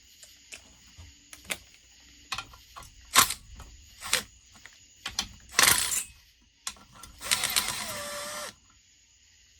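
Hand tools clicking and knocking against chainsaw parts during disassembly, a series of separate metallic clicks, then a second-long run of rapid clicking near the end.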